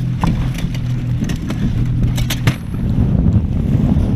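Small aluminum boat's engine humming steadily, with a few sharp clicks and knocks of gear being handled. A little over halfway there is a sudden change to wind on the microphone and water rushing along the hull as the boat runs through choppy water.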